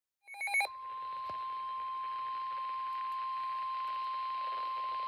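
Weather radio warning alarm tone: a brief burst of digital data chirps, then one steady high tone near 1 kHz that holds unbroken, sounding ahead of a National Weather Service tornado warning.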